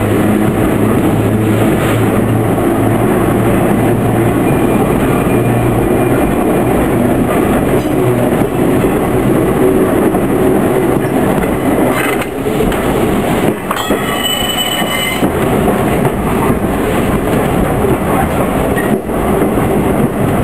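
Electric railway car running slowly over yard track, a steady rumble of motors and wheels on rail with a low hum early on. A few knocks come as it crosses joints and switches, and a brief high wheel squeal sounds about two-thirds of the way through.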